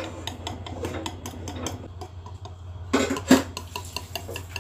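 Wire whisk beating a thin egg-and-flour batter in a glass bowl, the wires clicking quickly and unevenly against the glass, with one louder knock about three seconds in. A steady low hum runs underneath.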